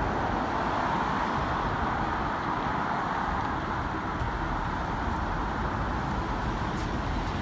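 Steady road traffic noise from a busy highway, an even wash of passing cars and trucks with no distinct joint clicks.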